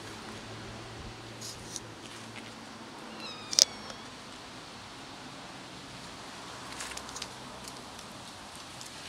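A kitten gives one short, high-pitched mew about three and a half seconds in, over a steady low background hum.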